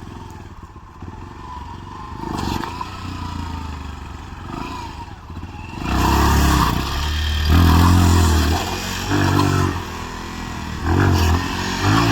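Motorcycle engine running, then revved hard in several surges from about six seconds in, the pitch rising and falling with each blip of the throttle.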